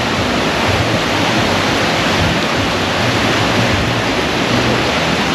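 Ocean surf washing onto a beach: a loud, steady rushing noise.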